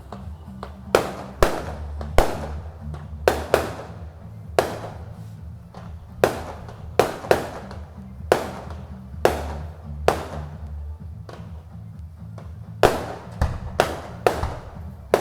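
Fireworks going off: about twenty sharp bangs at irregular intervals, sometimes in quick clusters, each with a short echoing tail, over a steady low rumble.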